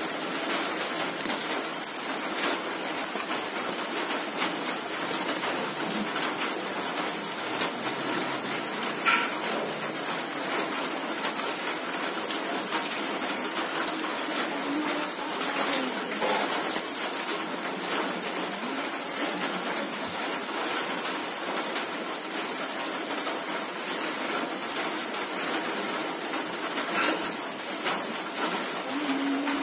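Wood fire hissing and crackling under whole fish grilling on a wire rack over embers: a steady hiss with scattered small crackles, over a faint steady high whine.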